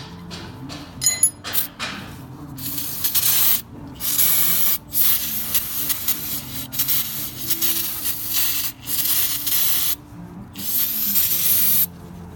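Hissing spray in several long bursts, each one to three seconds, from cleaning a forklift's drum brake assembly, most likely aerosol brake cleaner. A couple of sharp knocks come about a second in.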